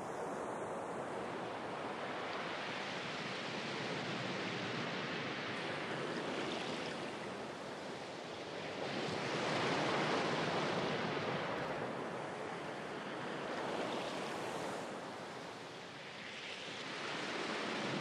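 Ocean surf breaking and washing up a sandy beach: a continuous rushing wash that swells and ebbs with each wave, loudest about halfway through.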